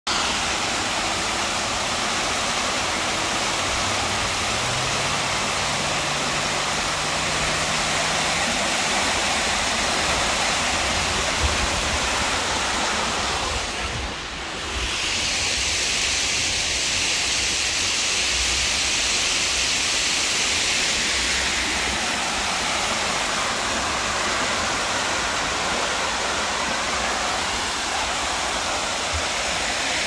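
Water pouring down a tiered man-made faux-rock waterfall into a pool: a steady rushing that dips briefly about halfway through.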